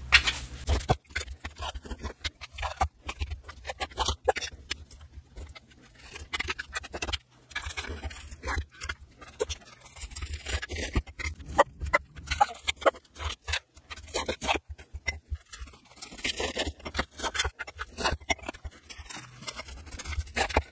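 A knife cutting raw chicken thighs on a plastic cutting board, with irregular taps and scrapes, as pieces of meat are dropped into glass canning jars.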